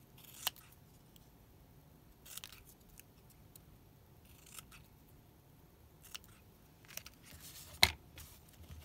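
Scissors snipping paper scraps: a few short separate cuts, the sharpest near the end.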